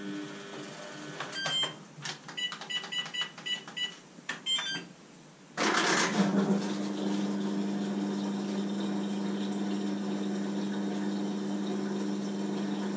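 Samsung washing machine's control panel giving a quick series of short beeps with a few clicks, then about five and a half seconds in, the machine starts filling: water rushing in over a steady hum that keeps going.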